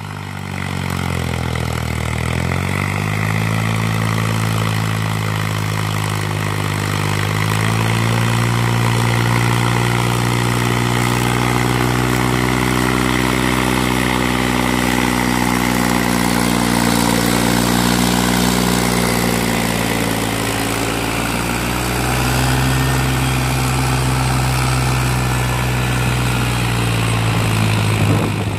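New Holland 3630 tractor's three-cylinder diesel engine working as it pulls a cultivator through the soil. Its note sags in the first two seconds, climbs back over the next few, and then runs steady and loud under load.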